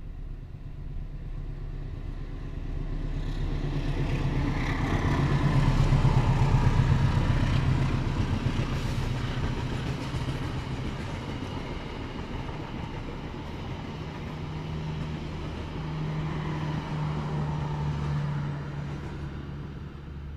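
A CC 201 diesel-electric locomotive hauling a passenger train past on the rails: a steady engine drone and rail rumble. It builds to its loudest about six seconds in, then goes on at a slightly lower, steady level as the coaches pass, and cuts off suddenly at the end.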